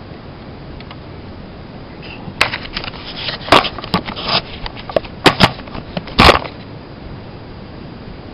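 A run of sharp clicks and knocks, about ten over four seconds, starting about two seconds in: a spark plug socket and extension being handled and fitted during a spark plug change.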